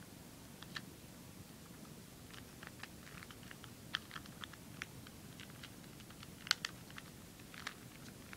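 Faint, irregular clicks of hard plastic puzzle-cube pieces being handled and pulled apart, the sharpest about six and a half seconds in.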